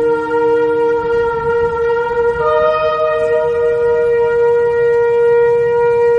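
Shofar blasts: long, steady held notes, with more than one horn sounding at once at different pitches. A lower note stops about a second in and a higher note joins about two and a half seconds in.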